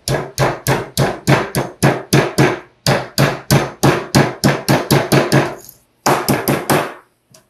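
Hammer striking a sheet-metal edge held against a steel square, folding it flat over for a locking seam. The rapid, even blows come about four a second, with a short break near the end before a few more.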